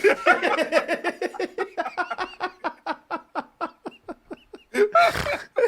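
Hearty laughter: a long run of rapid 'ha' pulses, about five or six a second, that gradually fades, then a loud breathy gasp near the end.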